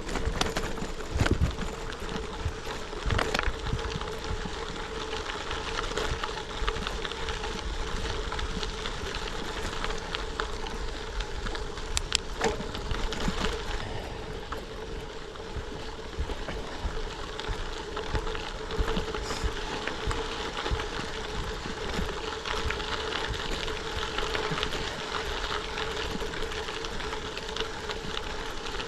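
Gravel bike on Continental Tera Trail tyres rolling over a dirt and gravel road: steady tyre and road noise with a faint steady hum, broken by a few sharp knocks and rattles from the bike.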